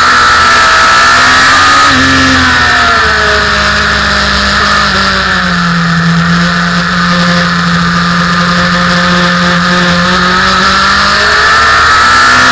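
Motorcycle engine heard from on board at speed through a corner. The revs fall as the rider brakes, hold steady and low through the bend, then climb as the throttle opens near the end.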